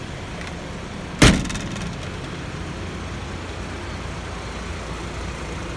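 Toyota Land Cruiser VX 80 turbo diesel engine, swapped into a 1980 Land Cruiser hardtop, idling steadily. About a second in, a car door is shut once with a loud slam.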